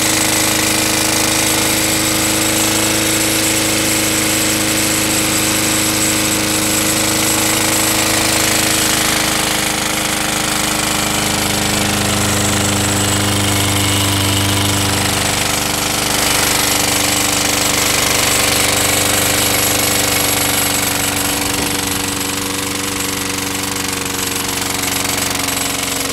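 Small overhead-valve single-cylinder lawn mower engine running steadily on gasoline vapor, drawn through a jar of gasoline-soaked socks instead of liquid fuel.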